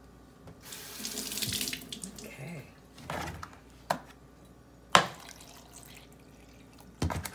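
Kitchen tap running briefly into a stainless steel sink, then several sharp clicks and knocks as the cap of a plastic jug is twisted off and handled. The loudest click comes about five seconds in.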